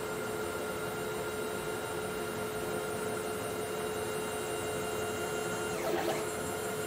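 Stepper motors of a homemade CNC router driving the gantry carriage at 42 inches per minute with no dampers fitted: a steady whine made of several held tones. About six seconds in the pitch dips sharply and climbs back as the axis slows and picks up again.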